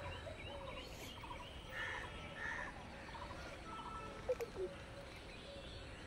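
Domestic fowl clucking over and over in short calls, with two brief louder sounds about four and a half seconds in.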